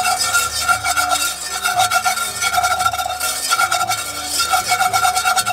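Wire whisk beating and scraping rapidly around a metal pan of orange sauce, a steady rasping swish. The sauce is being whisked as its cornstarch thickens it toward syrup consistency.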